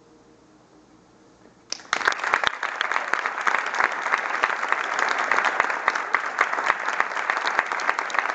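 The last chord of a grand piano dies away into near quiet, then an audience breaks into applause about two seconds in and keeps clapping steadily.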